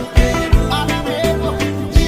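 Background music with a steady beat: an instrumental passage of an Amharic-language pop song.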